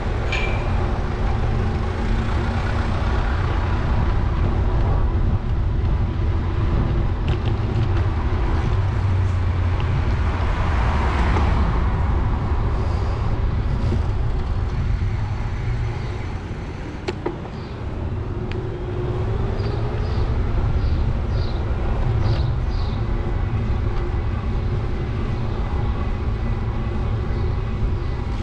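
Steady wind rumble on the microphone and road noise from a camera riding along on a moving bicycle, with traffic noise mixed in. The noise swells for a couple of seconds about eleven seconds in, and a run of about six short high chirps comes about two-thirds of the way through.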